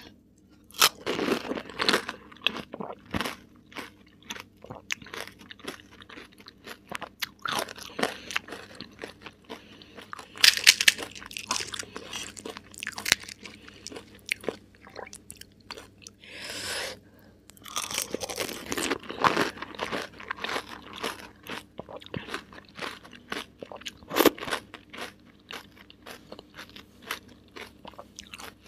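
Close-miked eating of pani puri: crisp, hollow fried puri shells filled with mint water crunching between the teeth, then chewed wetly. The crunching comes in repeated bunches of sharp crackles with quieter chewing between.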